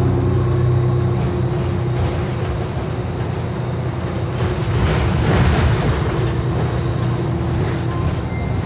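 Cummins engine of a Nova LFS city bus running, heard from inside the passenger cabin with a steady low hum, and a louder rush of noise about halfway through.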